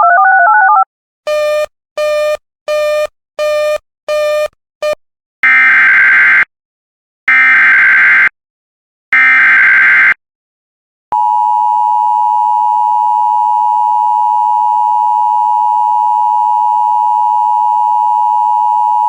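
Emergency Alert System tones. A brief warbling tone and six short beeps come first, then three roughly one-second bursts of raspy SAME digital header data. From about eleven seconds in comes the steady two-tone EAS attention signal, held for eight seconds.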